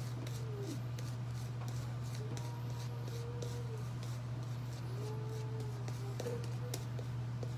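Shaving brush scrubbing lather over the face and beard, a soft bristly brushing with small clicks, over a steady low hum. A faint wavering tone rises and falls a few times.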